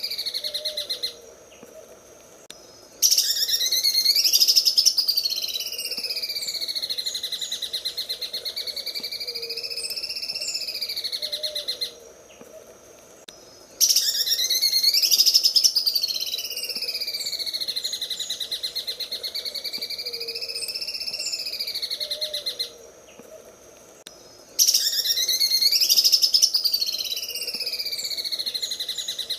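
Cucak ijo (green leafbird) singing its 'sewing machine' song: a fast, rattling trill whose pitch sweeps up and down. It comes in phrases of about nine seconds with pauses of about two seconds between them, three times over.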